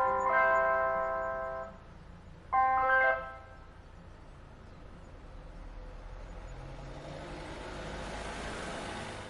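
Ice-cream van chime playing its jingle tune, which breaks off about two seconds in and returns for one short snatch about a second later. After that comes a steady rushing noise that slowly grows louder toward the end.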